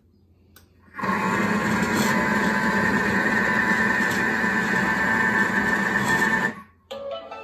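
Thermomix TM5 motor running steadily for about five seconds on speed 4, its blades mixing a thick pudding batter in the steel bowl, then stopping abruptly. A few short tones follow near the end.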